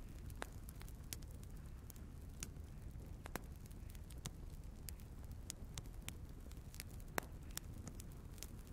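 Firewood burning in a wood stove, crackling with irregular sharp pops, about two a second, over a low steady rumble of the flames.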